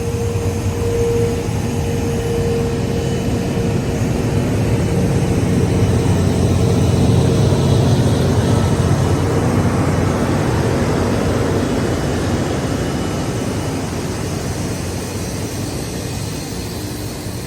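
A train passing close by on the line, a loud rumble that swells to a peak midway and then fades away.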